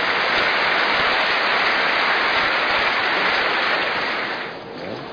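Crowd in the stands applauding a finished tennis point, a dense steady clapping that dies away near the end.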